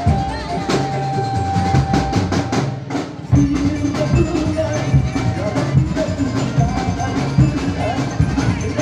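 Lively music for a jaran kencak dancing-horse performance: steady drumming and knocking percussion under a held melody line. It briefly drops away about three seconds in and comes back with a sudden loud hit.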